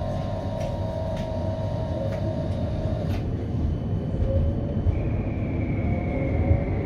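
CAF Urbos 3 tram running along street track, heard from inside the driver's cab: a steady low rumble with a whine. The whine stops about three seconds in, and a higher whine comes in about five seconds in, slowly falling.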